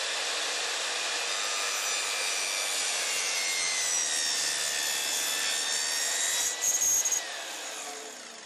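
Makita LS0714L slide compound mitre saw running, its blade cutting through a skirting board at a 45-degree bevel. A brief louder burst comes about six and a half seconds in, then the motor is let off and the blade spins down with a falling whine.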